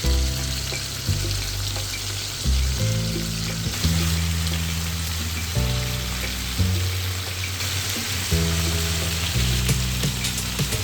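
Chicken frying in hot oil, a steady sizzle, over background music with sustained low notes that change every second or so.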